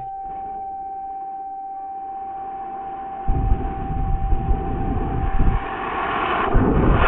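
A steady electronic tone sounds, then about three seconds in the L850 high-power rocket motor lights with an uneven rumbling hiss. It swells to full thrust near the end as the tone stops.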